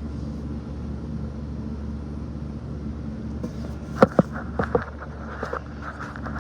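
Steady hum of a shop fan, with a quick run of sharp metallic clinks and knocks starting about four seconds in.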